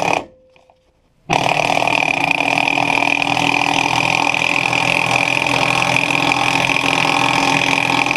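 A loud, steady machine noise that starts abruptly about a second in and runs on without change.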